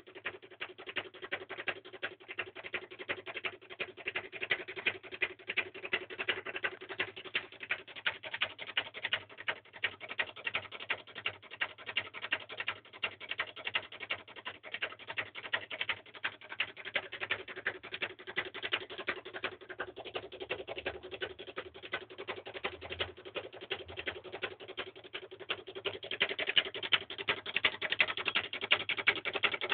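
Reed-switch magnet pulse motor running, with a fast, dense clicking over a steady hum. It gets louder near the end.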